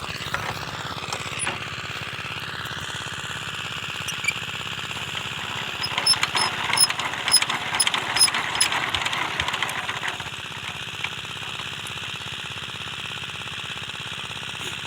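Single-cylinder diesel engine of a 12 hp power tiller running steadily with fast even firing, with a stretch of sharp metallic clicking and rattling over it in the middle.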